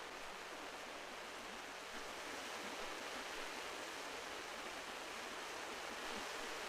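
Sea surf washing on the shore, a steady rushing noise without distinct breaks.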